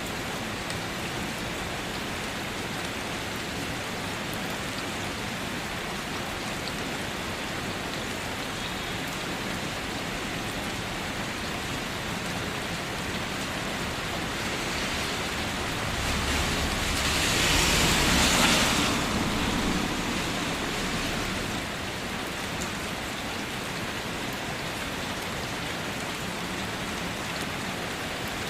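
Rain falling on a car, a steady dense patter. A little past halfway it swells louder for about four seconds, with a low rumble underneath, then settles back.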